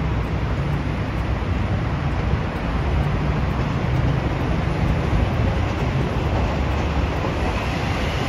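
A train running past with a steady low rumble and no distinct rhythm.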